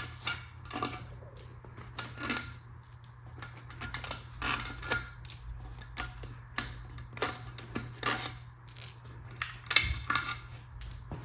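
Metal tools and engine parts clinking and rattling as they are handled during an engine teardown: irregular sharp clinks, one or two a second, some ringing briefly, over a steady low hum.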